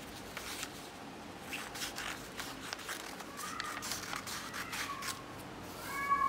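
Scissors cutting thin coloured paper, with the rustle and scrape of the sheet being handled: a run of short snips and crinkles. Near the end a short high-pitched cry or squeak cuts in, the loudest sound here.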